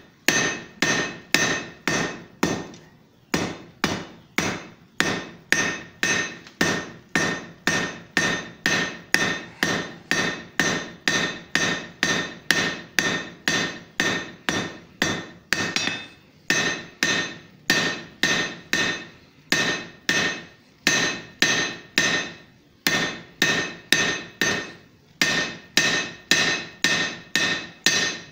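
Hand hammer striking a hot steel bar on an anvil at about two blows a second, each blow followed by a bright ringing from the anvil, as the bar's end is drawn out to a taper in both thickness and width. A few short pauses break the rhythm.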